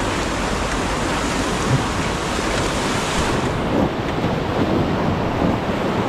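Whitewater rapids rushing loudly and steadily around an inflatable raft riding through them; the highest hiss thins out a little past halfway.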